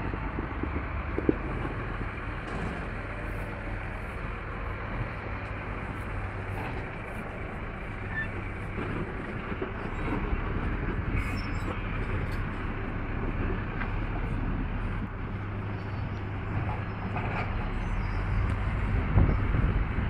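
Caterpillar 140H motor grader's diesel engine running steadily under load with a low rumble as its blade pushes loose soil, getting somewhat louder about halfway through and again near the end.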